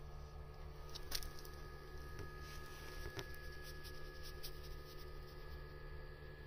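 Faint rustling and a few light clicks as the phone brushes against a ginger cat's fur, over a low steady hum.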